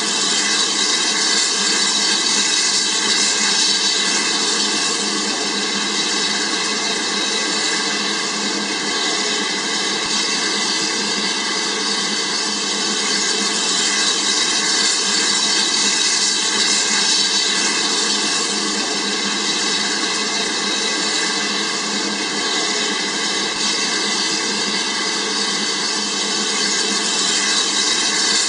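Hornby OO gauge model steam locomotive running on its track, a steady whirring hiss of the electric motor and gears with the wheels rolling, swelling and easing a little.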